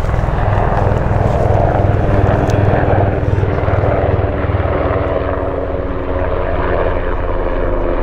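Military transport helicopter flying low overhead: the main rotor's steady, rapid throb with the turbine engines' whine over it.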